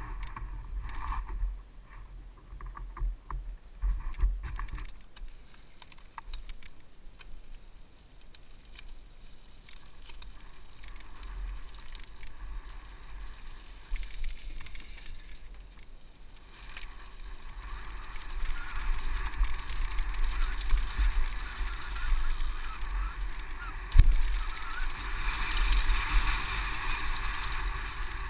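Mountain bike being ridden, heard from a camera mounted on the bike: wind buffeting and a low rumble, with tyres on dirt and gravel and rattling of the bike. The noise grows louder and hissier about halfway through as the ride speeds up, and there is one sharp knock near the end.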